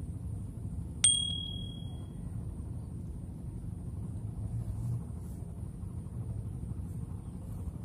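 A single bright metallic ding, like a small bell struck once, about a second in, ringing out briefly. Under it, a steady low rumble of wind on the microphone.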